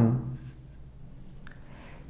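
A woman's spoken German word trails off at the start, then only low room tone follows, with a faint click about a second and a half in.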